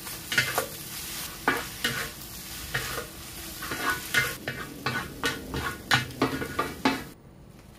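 Pad thai noodles, shrimp and bean sprouts sizzling in a large black wok while two wooden spatulas toss and scrape them in quick, irregular strokes against the pan. The sizzle cuts off suddenly near the end.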